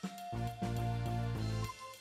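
Background music: held notes over a bass line with regular struck accents.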